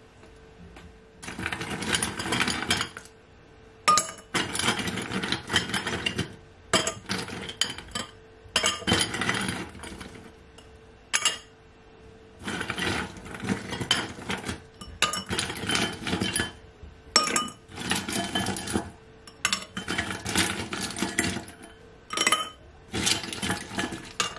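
Ice cubes dropped by hand into drinking glasses, clinking and rattling against the glass in about a dozen separate bursts.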